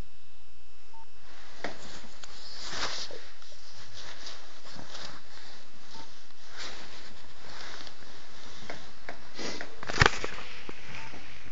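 Rustling of cloth and handling noise close to the microphone over a steady hiss, with a sharp knock about ten seconds in.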